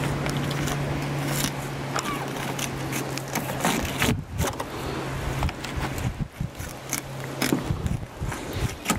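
A knife cutting and scraping through a cod on a wooden filleting board in short, irregular strokes. Under it a steady low motor hum runs and stops near the end.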